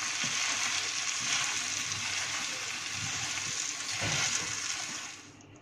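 Vegetables sizzling in a pan over a low gas flame while being mashed with a perforated steel potato masher, with soft, irregular thuds of the masher pressing into them. The sizzle cuts off suddenly about five seconds in.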